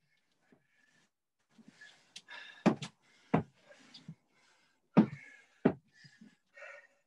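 Feet thudding on a rubber gym floor during reverse lunge drives: four sharp thuds in two pairs, starting about two and a half seconds in, with heavy breathing between them.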